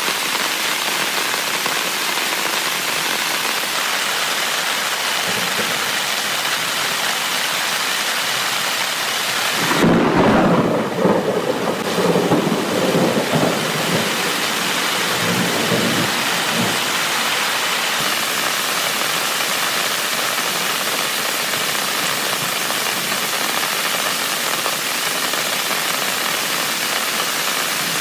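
Heavy rain falling on a tent in a steady hiss. About ten seconds in, a rumble of thunder rolls for roughly six seconds, then the rain carries on alone.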